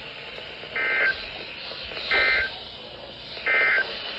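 Emergency Alert System end-of-message data bursts over weather radio: three short buzzy digital bursts about a second and a half apart, over steady radio hiss, marking the close of the severe thunderstorm warning.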